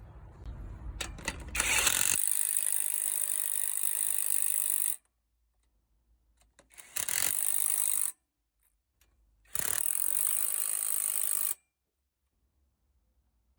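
A hand-held mechanical tool running in three bursts: one of about three seconds, a short one of about a second, and one of about two seconds, each starting and stopping abruptly.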